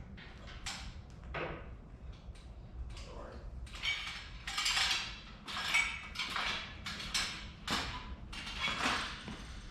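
Irregular clatter, knocks and rustling of hard parts being handled, with louder scraping strokes in the second half.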